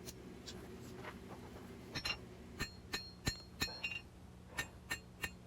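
Light hammer taps on a hot steel knife blade on the anvil, about ten irregular strikes, each with a short metallic ring. The blows are straightening a curve out of the blade's spine.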